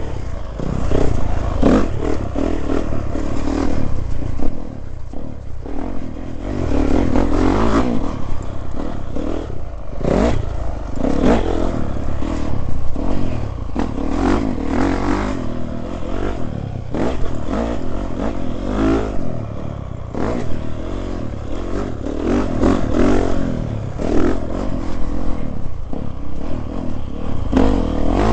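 Dirt bike engine revving up and down in surges as the bike is ridden round a motocross track, with rattling and knocks as it goes over the bumps.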